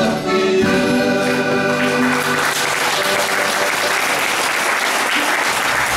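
Final chord of a folk band on accordion, zither and regimantola, held for about two seconds and then dying away. Audience applause swells in under it and takes over for the rest.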